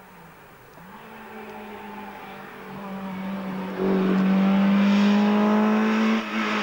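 Rally car approaching at speed on a tarmac stage, its engine held at high revs and growing steadily louder as it nears, with a brief dip in the engine note about six seconds in.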